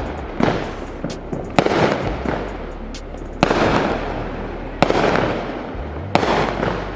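Fireworks going off: five sharp bangs about a second and a half apart, each followed by a fading crackle.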